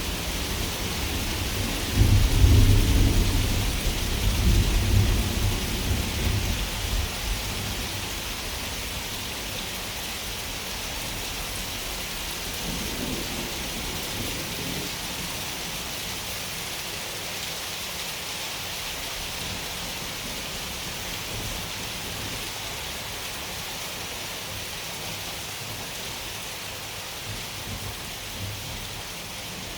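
Thunderstorm: steady rain falling throughout, with a thunderclap starting suddenly about two seconds in and rumbling away over several seconds, then a fainter roll of thunder a few seconds later.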